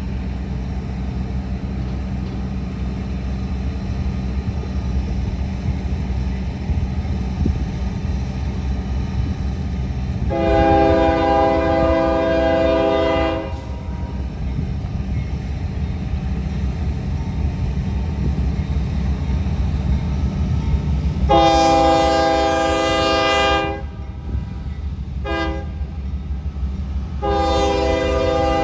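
Union Pacific rebuilt GE C44ACM diesel locomotive approaching with a steady low engine rumble, sounding its multi-chime air horn in the long-long-short-long grade-crossing pattern: two long blasts about ten seconds apart, a brief toot, then a fourth long blast near the end.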